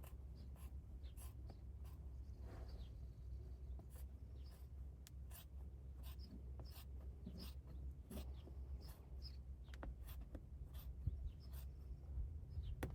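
Scissors cutting a rubber trim-to-fit cargo mat: faint, irregular snips and scratchy clicks over a low steady hum.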